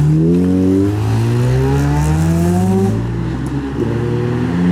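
Mazda RX-8's rotary engine accelerating away. Its pitch rises steadily, drops at a gear change about three seconds in, then climbs again.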